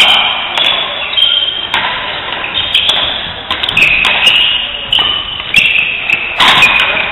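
Badminton doubles rally: racquets striking the shuttlecock in sharp cracks about once a second, with short high squeaks of court shoes on the floor between hits.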